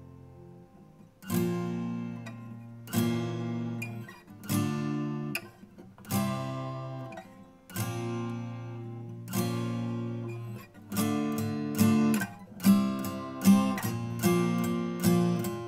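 Acoustic guitar with a capo, strumming chords without singing. A chord rings out and fades at the start. Then chords are struck about every second and a half, and from about eleven seconds in the strumming gets busier.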